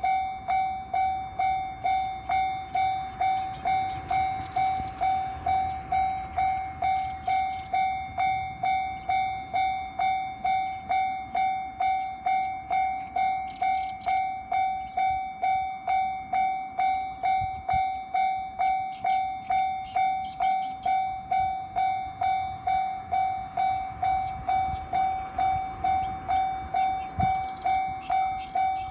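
Japanese railroad crossing alarm bell ringing steadily, an even, bell-like tone struck about twice a second, each stroke dying away before the next.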